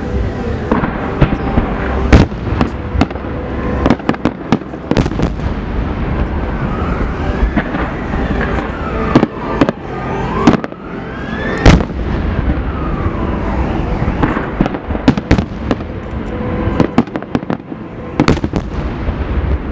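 Fireworks going off: many sharp bangs and crackles over a continuous rumble, with the two loudest bangs about 2 seconds in and near the 12-second mark. Several rising and falling whistles come through in the middle.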